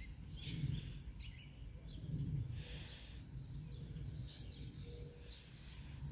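Small songbirds chirping: faint, short, high chirps repeated over a low rumble.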